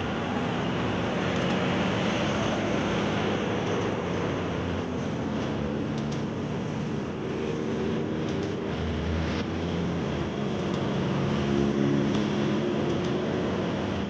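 Road traffic on a concrete road: a light box truck's engine and tyres as it passes close by, then the engine hum of further vehicles, rising and falling.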